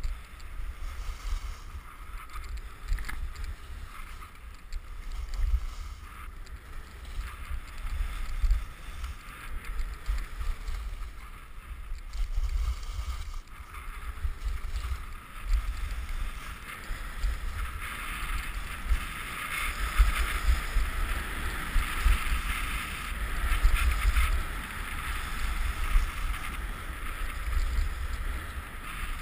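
Skis sliding and carving on a groomed snow piste: a steady hiss of the skis on snow that grows louder a little past halfway, with wind rumbling on the microphone underneath.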